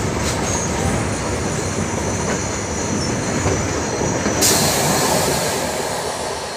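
Goods train wagons rolling past on the next track: a steady rumble and clatter of steel wheels on rail, with a thin high wheel squeal. About four and a half seconds in, a loud high hiss comes in and stays.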